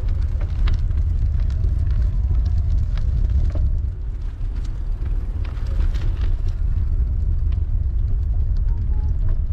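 A 2004 Cannondale F400 mountain bike rolling along a canal path. The tyres and ride make a steady low rumble, with scattered small clicks and ticks from grit and the bike.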